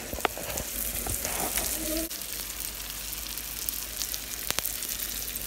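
Sliced smoked sausage frying in a nonstick pan: a steady sizzle with a few sharp crackles of spitting fat.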